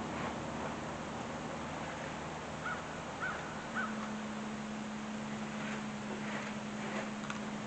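A crow cawing three times in quick succession, about half a second apart. A steady low hum comes in just after the last caw.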